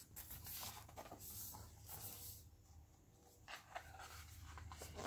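Pages of a large hardcover picture book being turned by hand: faint paper rustling and sliding, in two stretches with a short pause in the middle.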